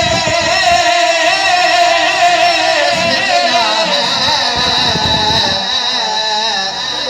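Song with instrumental accompaniment: a voice holds one long, wavering note over low drum strokes.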